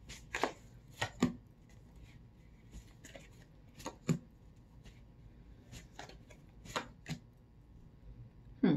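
Tarot deck shuffled and handled by hand: about a dozen short, sharp card snaps and taps, spaced irregularly.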